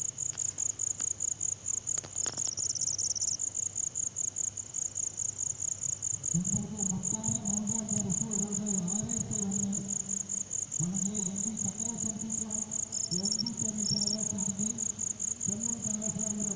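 Crickets chirping steadily in a fast even pulse. From about six seconds in, a frog joins with a low, pulsed trill, given in repeated bouts of one to three seconds.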